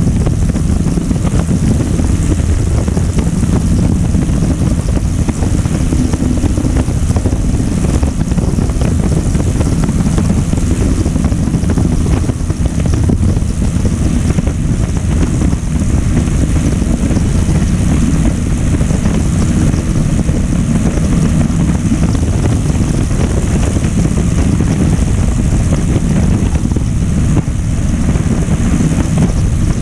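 Blériot XI-2 monoplane in flight: its engine running steadily, mixed with the rush of airflow over the airframe and microphone.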